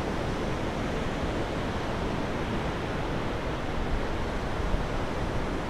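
Steady rush of sea surf breaking on the beach, with some wind noise mixed in.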